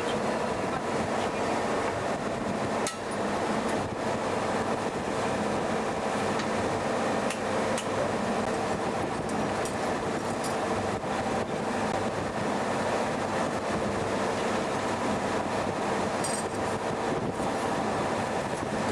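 Steady engine and machinery drone heard from on board a moving vehicle or boat, with a few faint clicks and rattles.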